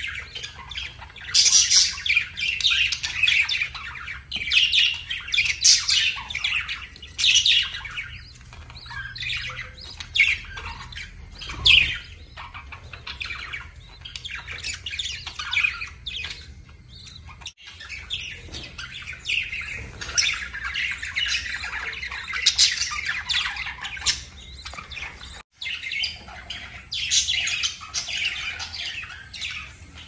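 Budgerigars chattering: a steady stream of warbling chirps and short squawks, with several louder bursts.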